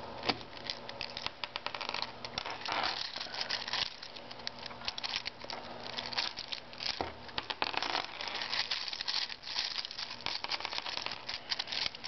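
Plastic pieces of a Rubik's-brand 5x5 cube clicking and rattling in the hands as its layers are turned and pieces are pried out during disassembly: many small, irregular clicks.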